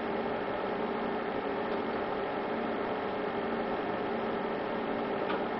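Steady electrical hum over a background hiss.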